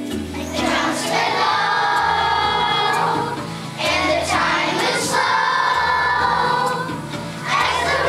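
Children's choir singing a song in unison over an instrumental accompaniment with a steady stepping bass line. The singing comes in phrases, with short breaks about four and seven seconds in.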